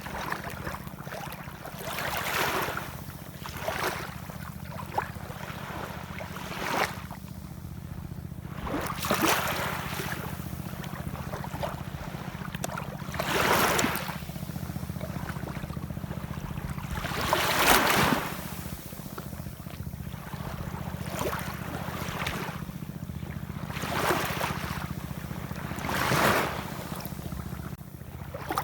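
Ocean waves washing in, one swell of surf hiss every few seconds, the loudest about halfway through, over a steady low rumble.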